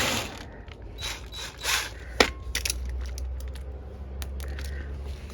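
Clicks, scrapes and ratcheting of hand tools and metal parts as an air conditioner's casing is opened for inspection, with one sharp click a little over two seconds in. A low steady hum sets in about halfway through.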